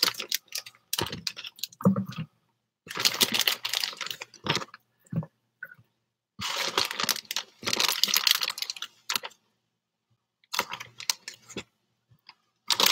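Handling noise from a plastic bag of rotisserie chicken: rapid crinkling and clicking in several bursts of one to three seconds, with short quiet gaps between them.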